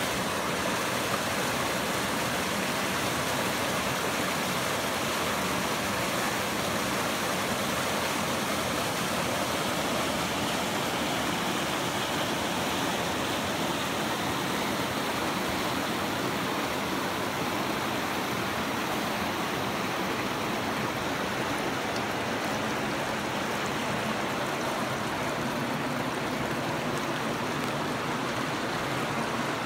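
Small waterfall and creek rushing steadily over rock ledges into a pool, an even, continuous roar of water.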